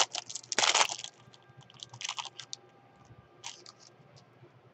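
The foil wrapper of a trading card pack being torn open and crinkled by hand. There is a loud crackling burst about half a second in, then a couple of fainter rustles.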